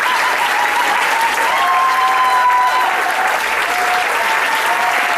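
Audience applauding steadily, with a few drawn-out cheers above the clapping.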